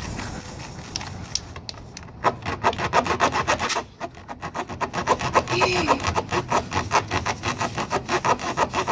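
Tire plug kit's T-handle rasp (reamer) being worked in and out of a puncture in a car tire's tread: rapid, rhythmic rasping strokes of steel against rubber, several a second. They start about two seconds in and break off briefly near four seconds. The puncture is being reamed clean to take a sticky plug cord.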